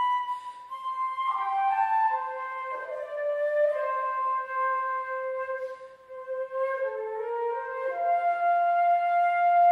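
Transverse flute playing a slow classical melody of long held notes, over a softer lower accompaniment.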